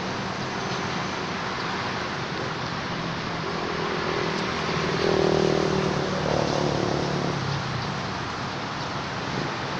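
A motor vehicle's engine humming as it passes, growing louder to a peak about halfway through and then fading, over a steady outdoor background noise.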